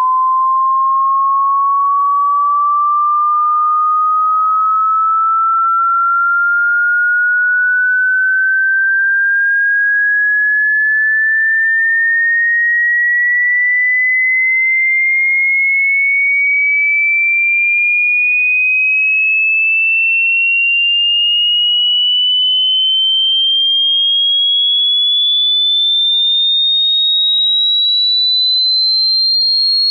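A single pure electronic sine tone sweeping slowly and evenly upward in pitch, climbing a little over two octaves at a steady, loud level: a hearing-test frequency sweep.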